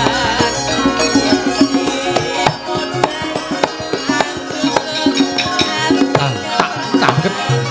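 Javanese gamelan music: quick drum strokes over sustained metallophone tones.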